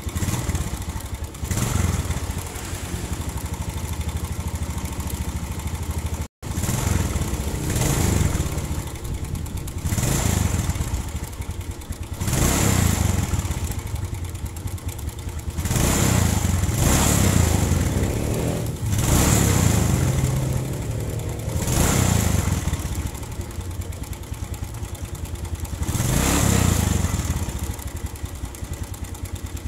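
Suzuki Smash four-stroke single-cylinder motorcycle engine running and blipped up and down repeatedly, every two to three seconds, with a rough clattering knock (kemelotok) from inside the engine. The noise is the sign of a loose timing-chain tensioner adjustment letting the cam chain slap.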